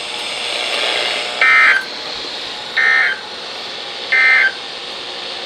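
NOAA Weather Radio end-of-message signal: three short bursts of SAME digital data tones, each about a third of a second and evenly spaced about a second and a half apart, over the receiver's steady hiss. It marks the close of the warning broadcast.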